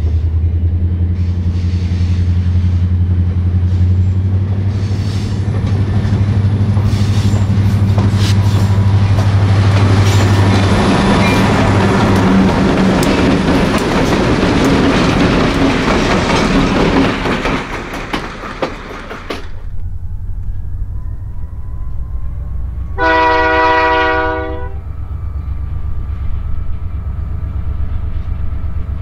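Diesel freight locomotives passing close with a steady low engine drone, then loud clatter and rumble of wheels and cars on the rails. After a cut, a more distant locomotive sounds one horn blast of about a second and a half, about two-thirds of the way in, over its low engine rumble.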